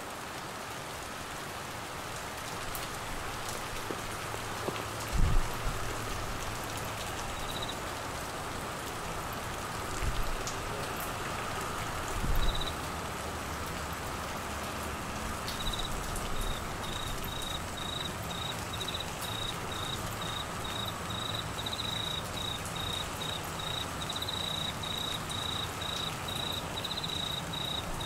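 Steady heavy rain falling on foliage and floodwater. A cricket chirps briefly twice, then from about halfway through keeps up a fast pulsing trill over the rain. Three short, dull low thumps stand out in the first half.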